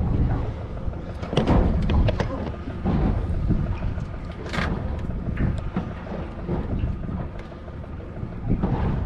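Wind buffeting the microphone aboard a small aluminium boat on the water, a steady low rumble with scattered knocks and clatters from the boat and its gear.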